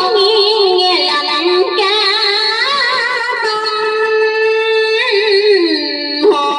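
Music without words: a melody with wide vibrato and sliding notes, some held long, over a sustained accompaniment, with a downward slide near the end.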